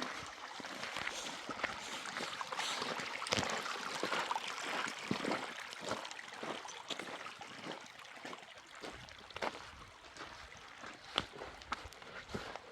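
Water sloshing and trickling, broken by many small clicks and knocks.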